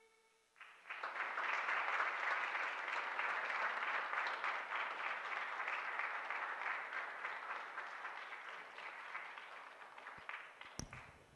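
Audience applauding, starting about half a second in and slowly fading toward the end, with a single sharp click near the end.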